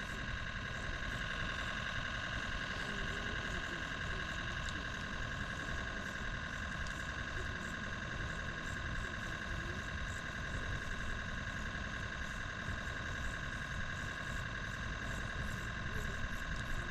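Steady outdoor ambience: a constant high drone with a low rumble underneath, with no distinct events.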